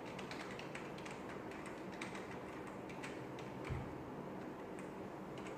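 Faint, irregular keystrokes on a computer keyboard as a line of code is typed, with one soft low thump partway through.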